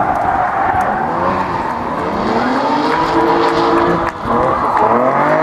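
Drift car's engine revving hard while the car slides sideways, its rear tyres spinning and skidding. The engine note climbs, drops briefly about four seconds in, then climbs again.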